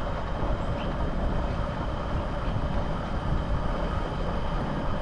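Evening jungle ambience: crickets keeping up a steady high trill and a few short bird chirps, over a steady low rumble.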